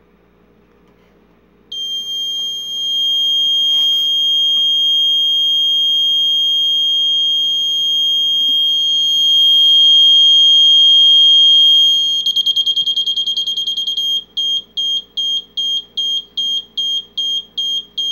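A high-pitched electronic alarm starts about two seconds in with a loud steady tone, switches to a rapid fluttering pulse near 12 seconds, then to a string of short, evenly spaced beeps, a little under three a second.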